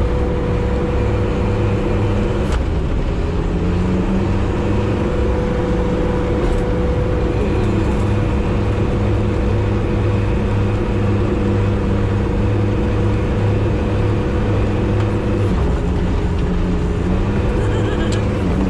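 Sherp amphibious off-road vehicle's diesel engine running steadily, heard from inside the cab as it drives over river ice. The engine pitch shifts slightly a few times, with a few faint clicks.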